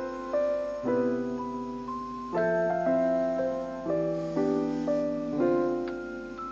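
Background piano music: slow chords struck one after another, each left to ring and fade before the next.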